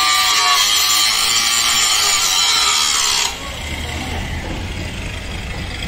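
Angle grinder grinding a steel truck chassis rail, a loud, steady high-pitched grinding noise. A little past three seconds in it cuts off abruptly, leaving a quieter sound with a low hum.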